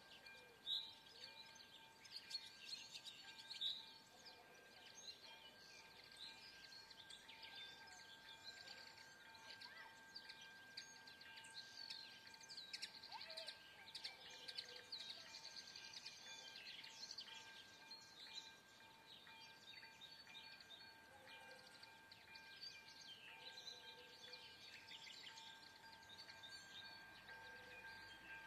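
Faint birdsong, many short chirps, over a steady high warning tone from an activated railway level crossing signalling an approaching train.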